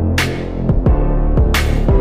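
Electronic background music with a steady beat: deep drum hits and sharp hissing snare-like hits over held synth tones.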